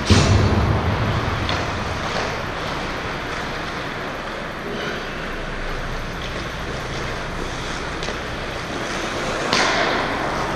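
Ice hockey rink sound: a steady rushing noise with skates scraping the ice. A sharp thump comes right at the start, and a louder skate scrape about nine and a half seconds in as play comes toward the net.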